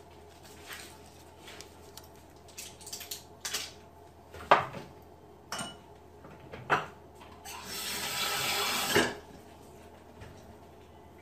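Kitchen clatter: a few sharp knocks and clinks of kitchenware, the loudest about four and a half seconds in. Then a kitchen tap runs for about a second and a half and stops with a clunk.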